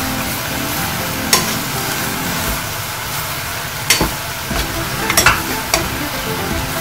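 Sliced pork and green onions sizzling in a pot as a spatula stirs and tosses them, browning the meat before the broth goes in. Several sharp clacks of the spatula against the pot about a second and a half in, around four seconds and again about five seconds in.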